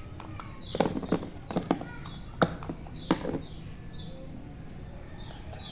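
A handful of light, sharp knocks and taps, bunched in the first half, with short high chirps repeating about once a second throughout.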